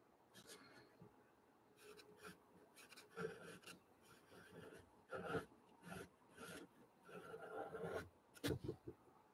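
Pastel pencil scratching across gesso-coated watercolor paper in faint, short, irregular strokes, with a few quick dabs and some longer strokes, the longest about a second, near the end.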